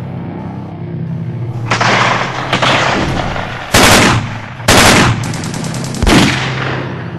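Battle sound effects: gunfire and machine-gun rattles over a low steady hum, with three loud booming blasts about a second apart in the middle.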